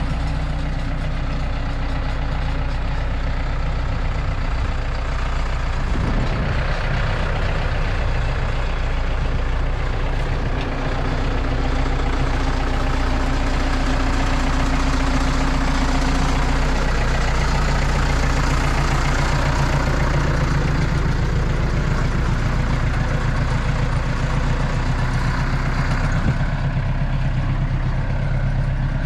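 Landini tractor's diesel engine running steadily while the tractor drives with the grass harrow on, its engine note shifting a couple of times.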